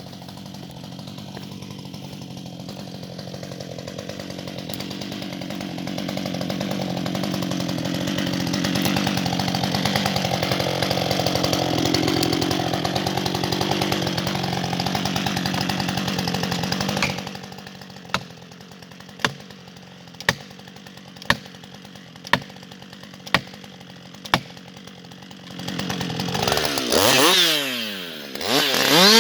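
Husqvarna 560XP two-stroke chainsaw running steadily, growing louder for a while and then dropping off about two-thirds of the way through. Sharp clicks follow, about one a second. Near the end the engine is revved up and down several times and then held at high revs.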